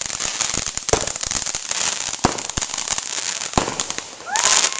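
Fireworks going off: a rapid run of crackles over a steady hiss, with several louder bangs and a loud hissing burst near the end.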